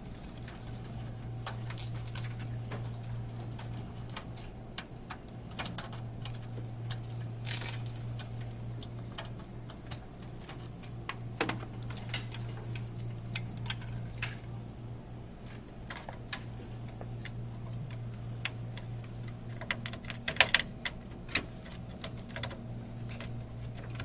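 Irregular clicks and taps of cable connectors and plastic parts being handled and pushed into place inside a desktop computer case, with a sharp click about six seconds in and a cluster of clicks near the end, over a steady low hum.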